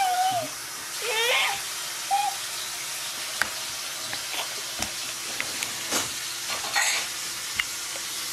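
Steady background hiss with two short, high-pitched squeals in the first second and a half, the second rising in pitch. Scattered light taps and knocks follow, like hands patting a hardwood floor, with one sharper knock about six seconds in.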